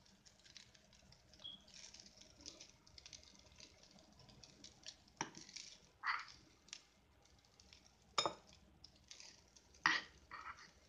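A spoon scraping and clinking against a nonstick pan and a glass bowl as cooked rice is served, with scattered light scrapes and four louder sharp clinks in the second half.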